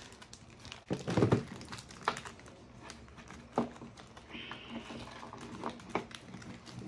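Cookie package wrapper being handled and torn open by hand: scattered crinkles and short rips, the loudest a brief rustle about a second in.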